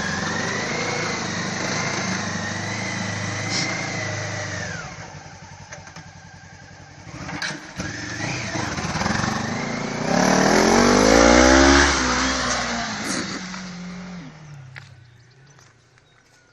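Homemade all-terrain vehicle's engine working hard on a slippery climb, with a high whine over it for the first few seconds. It drops back about five seconds in, then revs up with a rising pitch around ten seconds in, its loudest moment, and fades away near the end.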